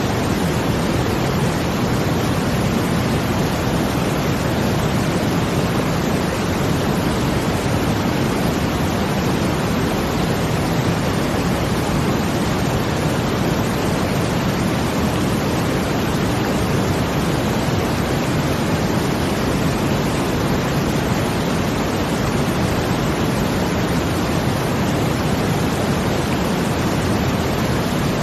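Steady brown noise blended with the rush of water, a constant deep hiss weighted toward the low end, with no swells or breaks.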